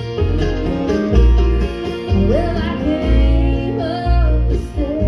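Live bluegrass string band playing an instrumental break on fiddle, mandolin, banjo, acoustic guitar and upright bass, with the bass playing steady notes on the beat. About halfway through, a high note slides up and is held.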